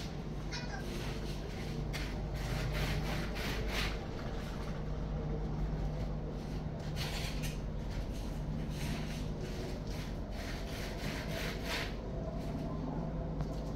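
A steady low hum runs under short spells of scratchy rustling that come and go every second or two.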